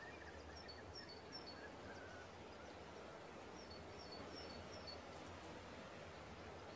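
Faint outdoor ambience with soft bird chirps: a short run of high twitters about a second in and another around four seconds in.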